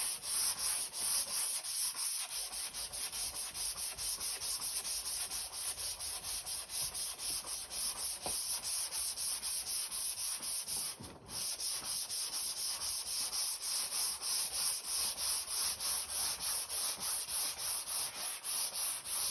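Hand sanding a painted car panel with 320-grit paper on a flexible sanding block: quick, even back-and-forth strokes, about three a second, with a brief pause about halfway. The paper is cutting back orange peel in the paint.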